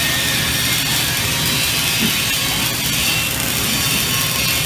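Electric arc welding on a large pipe: the arc crackles and hisses steadily.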